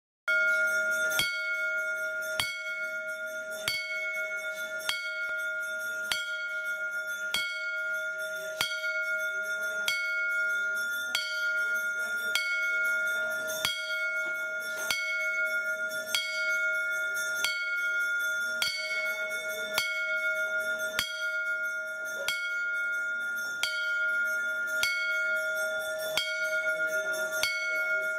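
A metal bell struck at a steady pace, about once every second and a quarter, each stroke ringing on into the next with a sustained clear tone, as rung during a Hindu puja.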